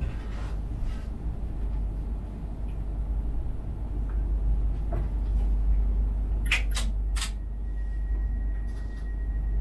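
Low steady hum of a stationary Talent 3 electric multiple unit heard from the driver's cab. About two-thirds of the way through come three sharp clicks in quick succession. Soon after, a steady high beeping tone starts and keeps sounding.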